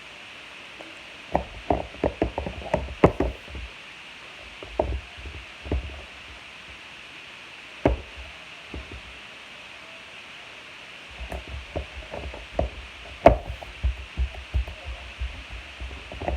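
Slime being worked by hand, making irregular runs of sharp clicks and pops. A dense burst comes about a second and a half in, a few single pops in the middle, and a long run starts near the end.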